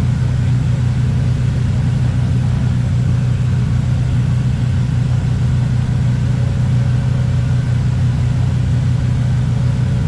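Cessna 310R's twin piston engines running at low taxi power, a steady low drone heard inside the cockpit.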